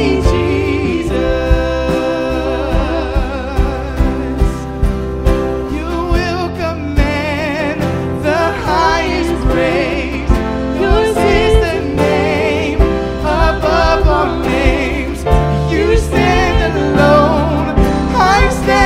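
A gospel-style song with a singer whose voice wavers in a wide vibrato, over sustained band chords and a steady drum beat.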